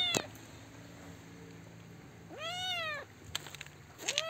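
Kitten meowing: the end of one meow at the start, then a high meow that rises and falls about two seconds in, and another beginning near the end, with a few faint clicks in between.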